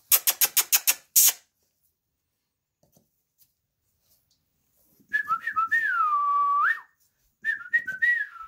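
A person making a quick run of about eight sharp mouth clicks, then whistling twice: a warbling whistle that slides down and holds, and a shorter warbling one near the end. These are calls to get the puppies' attention.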